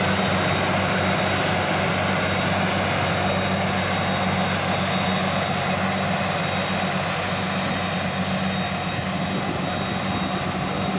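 Self-propelled forage harvester working steadily in barley, heard from inside its cab: an even engine drone with the noise of the chopper cutting the crop.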